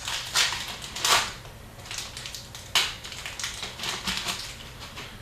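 Hockey trading cards and pack wrappers being handled: a handful of short rustling swishes and crackles, the loudest about a second in and near the three-second mark, as cards are slid and flipped through.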